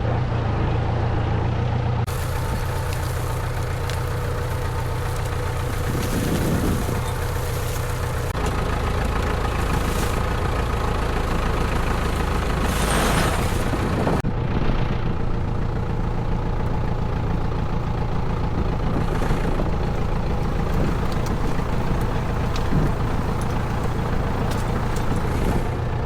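Case 431 tractor engine running steadily, with a short hiss about halfway through.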